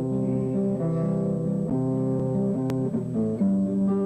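Band music led by guitar, playing between sung lines, with the chords changing every half second or so. A single sharp click sounds about two and a half seconds in.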